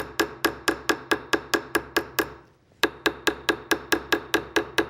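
Ball peen hammer's round end tapping a small sterling silver disc on a bench block to texture its surface: quick, even metallic taps about four to five a second, each with a short ring. The tapping stops briefly a little past halfway, then resumes at the same pace.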